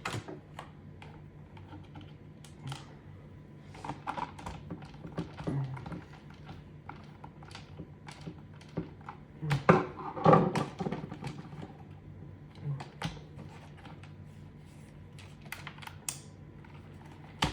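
Scattered light clicks and taps of plastic portable-fan parts and small screws being handled while the fan's covers are fitted back on, with a cluster of louder knocks about ten seconds in.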